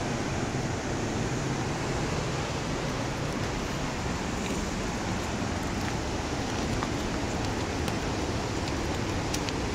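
Steady rushing roar of creek water and falls in the gorge below the trail, with a few faint clicks near the end.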